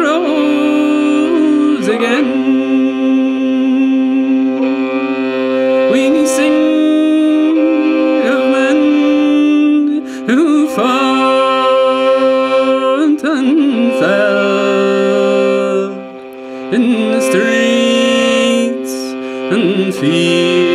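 Fiddle playing a slow air between sung lines, long held notes with sliding ornaments over a steady low drone.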